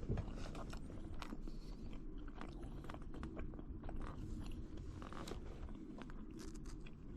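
A person chewing charcoal-grilled mochi, with irregular small crunches and clicks.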